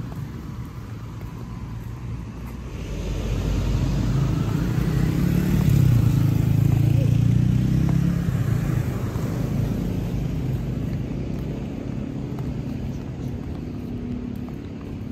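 A motor vehicle passing close by on the road: its low engine hum swells over a few seconds, is loudest about six seconds in, and fades slowly, over steady street traffic noise.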